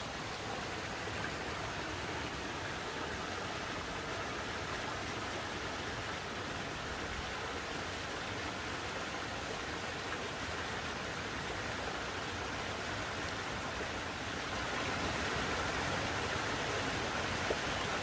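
Shallow mountain stream running over rocks and a small cascade: a steady rushing, splashing hiss of water that grows a little louder about three-quarters of the way through.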